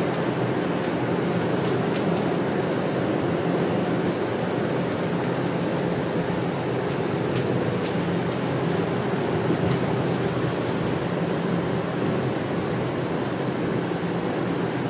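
Steady engine drone and tyre noise heard inside the cabin of a bus cruising on a highway, with a few faint ticks of rattle.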